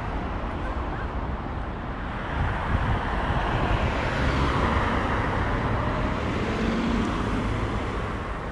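A car passing along the street, its tyre and engine noise swelling about two seconds in and fading near the end, over a steady low traffic rumble.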